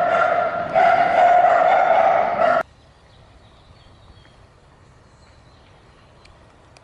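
A loud, high-pitched drawn-out vocal sound in several pulses with short breaks, cut off abruptly about two and a half seconds in, leaving faint background noise.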